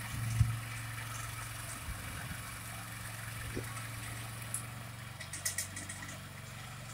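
Small motoblock engine running steadily under load while its rear rotary tiller churns through garden soil, with one sharp knock about half a second in and a few short clicks near the end.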